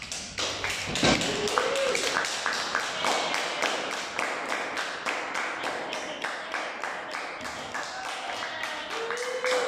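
Small audience applauding, the clapping starting suddenly and holding steady, with a few voices calling out over it.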